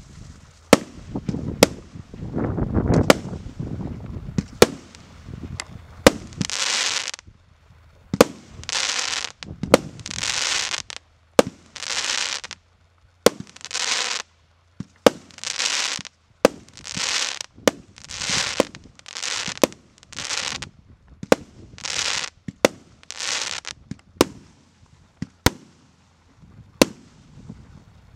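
Multi-shot consumer firework cake (Goblin JFC2) firing, with a sharp report about once a second. Through the middle stretch most shots are followed by a short hiss of about a second, and there is a low rumble about three seconds in.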